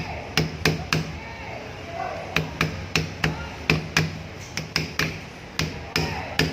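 Hammer taps on a part of an angle grinder, sharp metallic knocks two to three a second in short runs, with a pause of about a second and a half after the first few.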